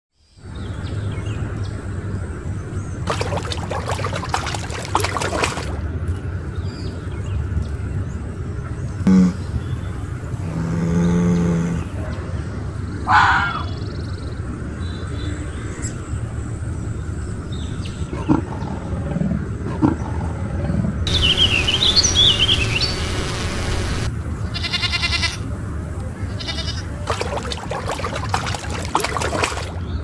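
A succession of different wild animal calls, one clip after another, over a steady low rumble. Around two-thirds of the way through comes a stretch of high, warbling calls, followed by a quick pulsing call.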